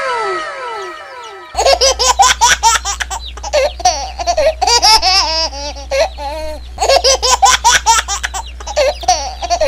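A descending, ringing cartoon sound effect fades out. Then, about a second and a half in, a baby starts laughing in repeated bouts over a steady low hum.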